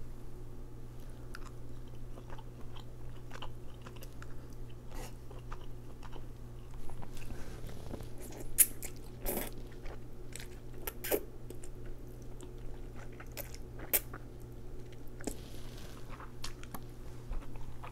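Close-miked chewing of noodles and baked salmon, with wet mouth clicks and a few sharper smacks. A mouthful of noodles is drawn in about eight seconds in. A low steady hum runs underneath.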